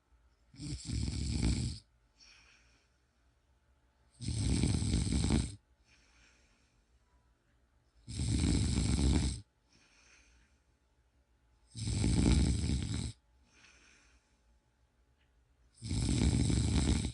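A person snoring: five loud snores, about one every four seconds and each just over a second long, with faint breaths between them.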